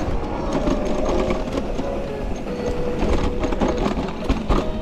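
Electric mountain bike rattling over a rough trail: a steady low rumble of tyres and wind on the microphone, with a run of quick clicks and knocks from the chain and frame.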